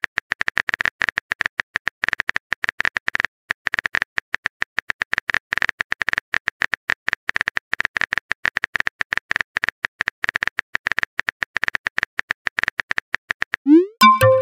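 Rapid, irregular keyboard-tap clicks from a texting app's typing sound effect as a message is typed on a phone's on-screen keyboard. Near the end there is a short rising tone and a couple of sharper blips.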